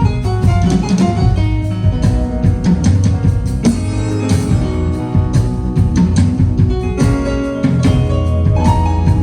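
A band playing instrumental music at a sound check: guitar over a drum kit, with no singing.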